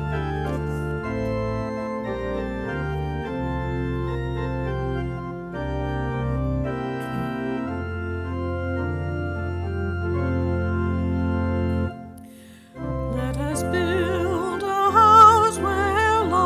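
Organ playing the introduction of a hymn in sustained, held chords. After a brief pause about 13 seconds in, a woman's voice with vibrato begins singing the hymn over the organ.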